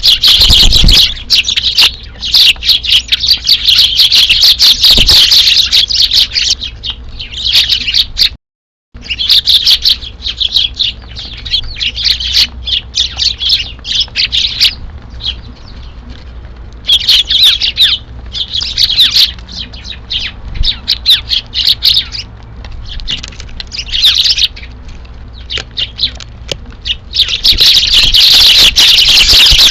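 A flock of Eurasian tree sparrows chirping busily, in dense bouts that swell and thin out. The sound cuts out completely for about half a second around eight seconds in.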